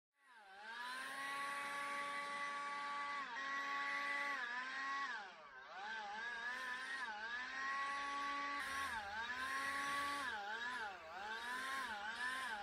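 Leaf blower running at high speed, its pitch dipping briefly and climbing back again several times as the throttle is eased and squeezed.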